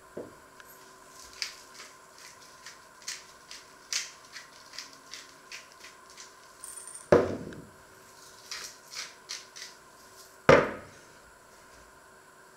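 Light clicks and taps of food prep on a wooden worktop, then two sharp knocks on the wood a few seconds apart, louder than anything else.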